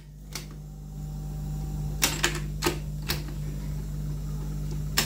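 Piano-key transport buttons of an Akai CS-M01A cassette deck clicking as they are pressed, several sharp mechanical clicks with a cluster in the middle, over a steady low hum while the tape is stopped between songs.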